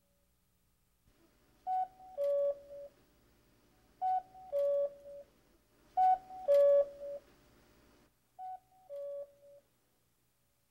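Cuckoo clock calling the hour four times, each call a higher note dropping to a lower one, about two seconds apart.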